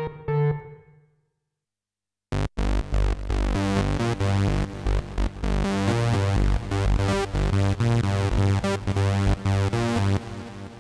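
u-he Diva software synthesizer demoing a polyphonic sawtooth patch (the 'MK Saw Euro' preset): a rhythmic pattern of bright chords over bass notes that starts after a click about two seconds in and fades near the end. Before it, the last notes of an organ patch die away into a short silence.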